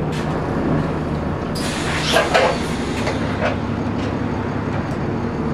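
Inside an ADL Trident 2 double-decker bus with an Enviro 400 body on the move: steady engine and running hum. About two seconds in there is a brief hiss with a couple of sharp knocks.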